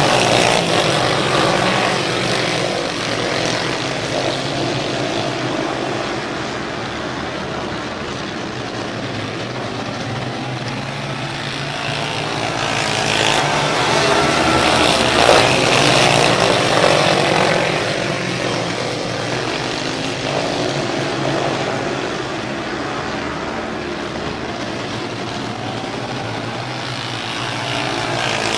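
Racing kart engines running as a pack laps a dirt oval, the sound swelling and fading as the karts pass, loudest about halfway through.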